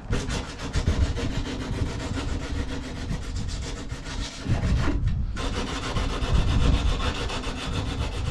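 Sandpaper wrapped around a stick rubbing rapidly back and forth in the slots of a composite tube, hand-sanding the cut edges, with a brief pause a little after five seconds in. A low rumble runs underneath.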